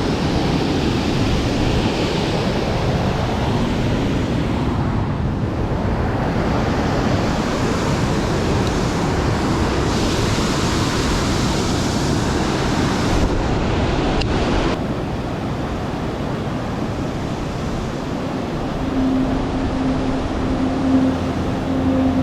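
Strong wind buffeting the microphone, a loud steady rushing noise. About three-quarters of the way through, a steady low hum with a few fixed tones comes in under it.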